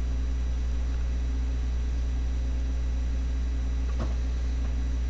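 Steady low electrical hum from the recording setup, with a single faint click about four seconds in.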